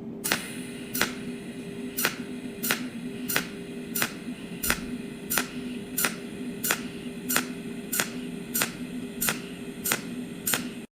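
A small machine running with a steady hum and a sharp tick that repeats evenly, about every 0.6 seconds, as of something turning over once per revolution.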